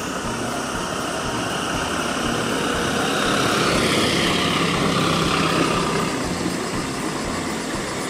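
Steady engine and traffic noise from a motor vehicle, swelling as it passes about halfway through and then easing off.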